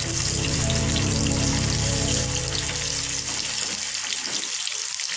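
Pieces of raw plantain deep-frying in hot oil in a metal kadai with a steady, hissing sizzle, stirred now and then with a metal slotted spoon.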